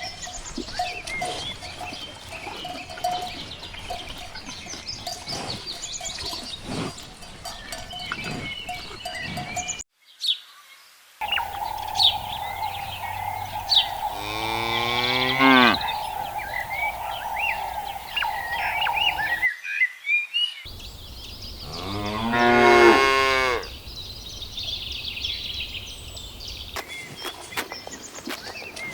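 Cows mooing on pasture: one call falling in pitch about halfway through, then a louder, longer moo a few seconds later, with short high chirps and a steady ringing tone behind.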